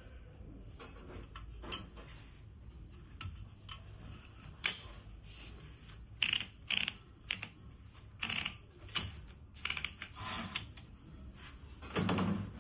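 Remington Quiet-Riter manual typewriter clicking and clacking mechanically, with irregular, unevenly spaced strokes. A longer, louder rattle comes just before the end.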